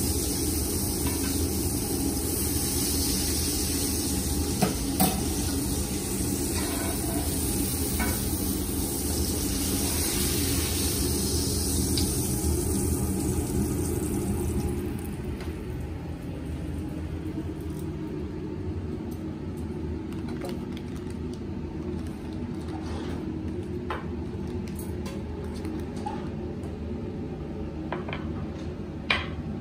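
Steak sizzling hard in butter in a cast-iron skillet while it is basted with a spoon, with the odd clink of the spoon on the pan. About halfway through the sizzle drops off sharply as the steak is lifted out, leaving a fainter hiss from the pan, light clinks and clicks of utensils, and a steady low hum.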